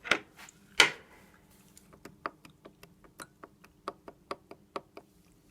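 Sharp metallic clicking of a Jawa two-stroke twin's left connecting rod being rocked up and down on its crankpin, two louder knocks and then a quick run of ticks at about four or five a second. The clicks are the play in the rod's big-end needle bearing, whose cage has broken up.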